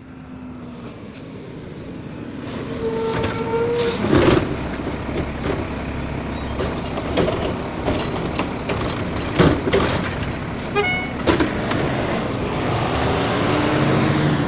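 Garbage truck working close by: its engine runs with a steady hiss, a brief squeal comes about three seconds in, and scattered metallic clanks and bangs follow, the loudest about four seconds in.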